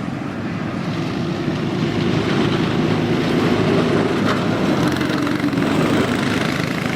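Small cyclekart engine running steadily, growing somewhat louder over the first few seconds and then holding.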